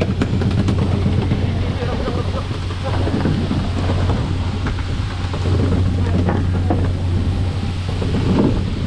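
Steady hiss and rush of the tuna boat's water sprinklers spraying onto the sea surface, with the water splashing, over the constant low hum of the boat's engine.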